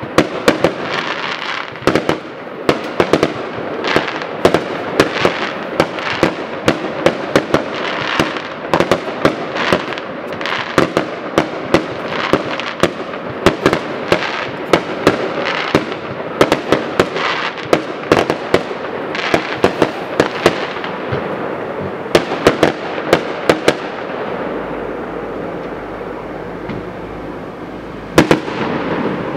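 Aerial fireworks display: shells bursting in a rapid, irregular string of sharp bangs over a continuous din of crackle and echo. The bangs thin out for a few seconds near the end, then pick up again.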